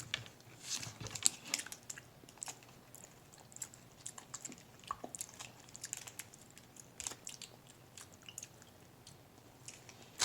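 A person chewing a piece of Finnish salty licorice, a quiet run of irregular small mouth clicks.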